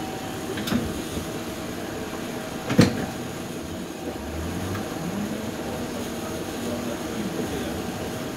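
Steady running hum inside a city transit vehicle, with a short click about a second in and a louder sharp knock near three seconds.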